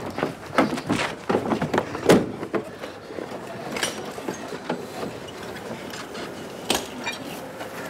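Knocks, clicks and rustling from someone fumbling about inside a car through its open window. The knocks come thick and fast for the first couple of seconds, then thin out, with one sharp click near the end.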